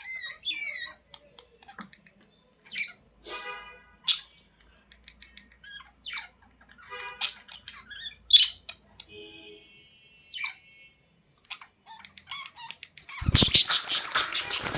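Budgerigars chirping and squawking in short, scattered calls. A loud, dense flurry of noise starts near the end.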